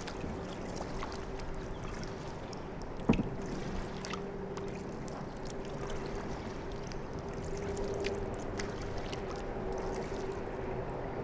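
Kayak paddling on a river: paddle splashes and drips with small clicks, and one sharp knock about three seconds in. A steady low hum runs underneath.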